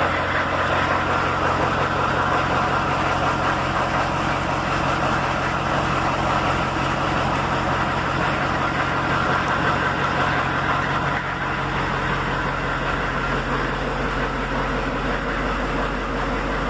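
School bus engine idling steadily, just after being started; its low hum shifts slightly about eleven seconds in.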